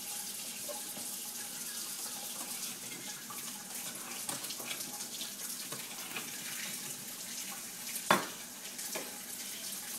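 Kitchen faucet running steadily into a sink, the stream splashing over a small vegetable held under it to rinse it. A sharp knock about eight seconds in, and a fainter one a moment later.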